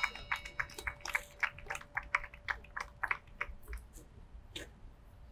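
A memorial bell's tone dying away after a single strike, lingering as a long steady hum. Over it, a quick run of light clicks, several a second, stops about three and a half seconds in.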